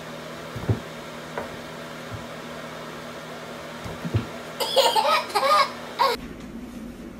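A few soft, dull thumps, then a toddler's squealing laughter for about a second and a half, starting about two-thirds of the way in.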